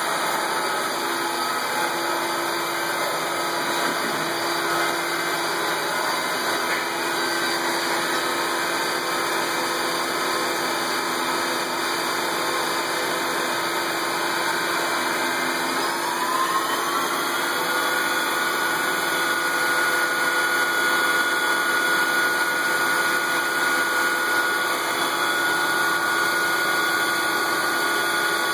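Garage machine-shop tools running together: a lathe, a bandsaw and a CNC mill cutting metal. A steady motor whine whose pitch rises about halfway through and then holds.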